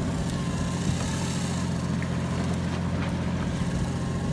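Fishing boat's engine running steadily, a low even hum.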